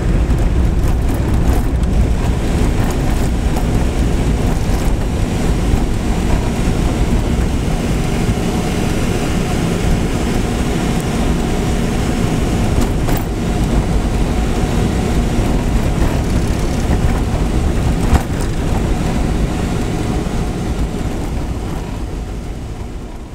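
A motor vehicle running steadily, with a low engine and road rumble. There are a couple of brief knocks, and the sound fades out near the end.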